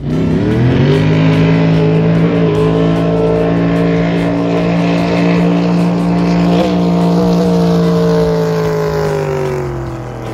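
Race jet boat's engine at full throttle on a run: the note climbs sharply in the first second, holds steady and loud, then eases down near the end.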